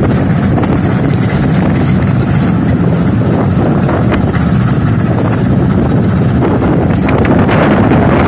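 A small motorboat's engine running steadily, with wind and water rushing around it.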